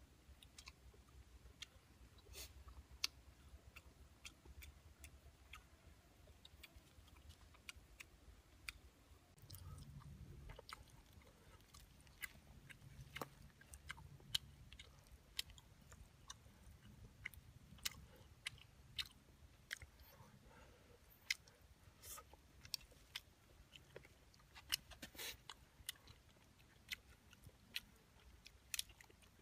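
A person eating grilled catfish with the fingers: faint, irregular clicks and smacks of chewing and of picking at the fish.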